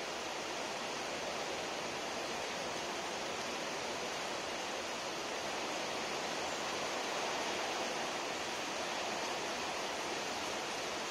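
Steady tropical rain falling on trees and garden, an even hiss that holds at one level throughout.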